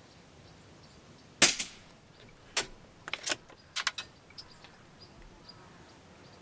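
A single shot from a Rossi 8122 .22 rimfire rifle firing Aguila subsonic ammunition through a SAK sound moderator: one short, dry crack about a second and a half in. A series of lighter clicks follows over the next three seconds.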